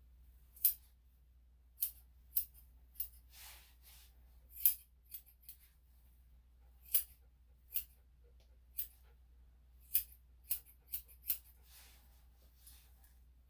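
Grooming scissors snipping through a poodle-cross dog's coat: about fifteen short, crisp snips at irregular intervals.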